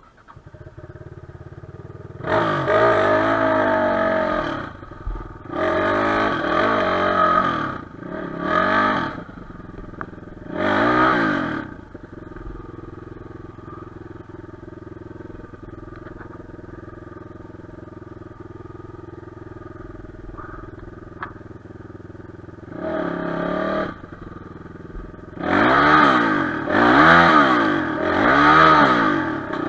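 Enduro motorcycle engine idling steadily between repeated throttle revs. There are four revs in the first twelve seconds, then about ten seconds of idle, then one rev followed by a quick run of three or four near the end.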